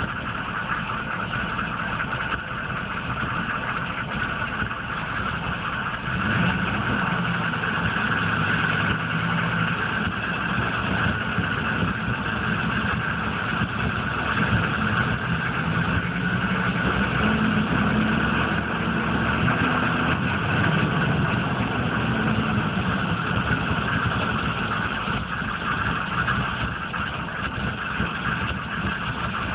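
1995 GMC K3500's 6.5-litre turbo diesel V8 idling roughly, its note rising a little about six seconds in and easing back near the end. This is the rough idle that goes with its misfires and stalling, which the owner suspects comes from the PMD or the injection pump.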